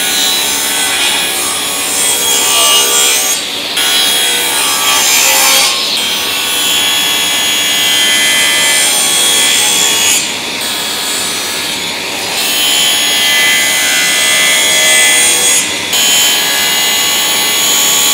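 Power saw running and cutting plywood into 150 mm pieces, a steady loud whine and hiss, with a few short dips in the high hiss.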